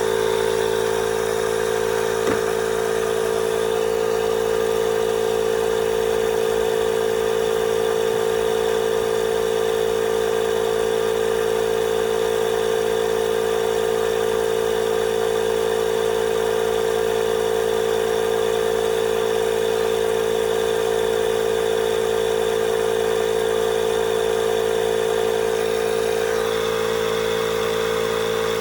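Electric tire inflator's compressor running with a steady hum, pumping air into a car tire.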